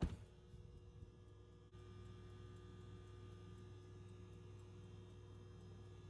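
A Westinghouse wall oven's door shut with a single sharp thud, followed by a steady low electrical hum.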